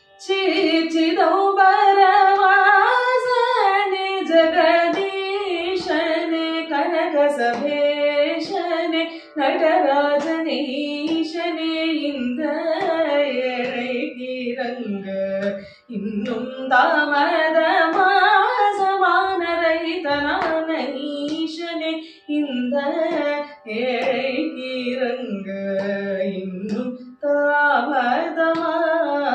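Woman singing Carnatic music: long notes that glide and waver in pitch, in phrases broken by short pauses for breath.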